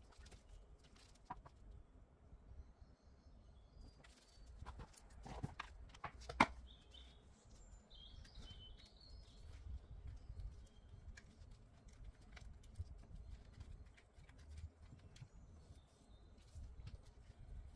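Quiet handling noise: light clicks and taps from a clear plastic storage case and rolls of nail transfer foil handled with gloved hands, with one sharper click about six seconds in.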